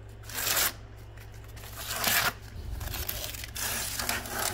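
Blue painter's tape being peeled off a car's door sill plate: two short tearing pulls about a second and a half apart, then softer scratchy rustling.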